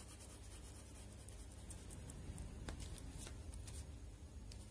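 Ballpoint pen scratching faintly on paper in quick back-and-forth strokes, hatching in a small shaded area.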